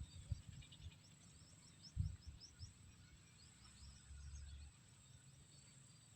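Faint high-pitched bird calls: a rapid series of short, rising chirping notes, thickest in the first three seconds. Underneath is a low rumble, with a thump about two seconds in.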